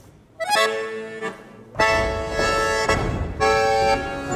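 Button accordion (bayan) music: after a brief lull, sustained chords come in about half a second in, then a fuller, louder passage from about two seconds in.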